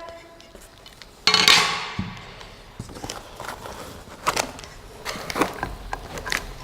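Parts and packing being handled during an unboxing: a loud scraping rush about a second in, then scattered light knocks and clicks of pieces being lifted and set down.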